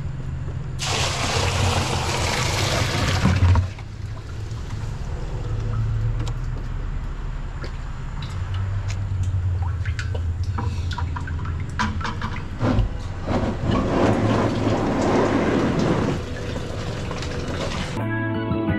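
Water sloshing and splashing in a bait bucket of live shrimp, loudest in two rushes about a second in and again around thirteen seconds in, with small knocks against the bucket, over a steady low hum. Music starts near the end.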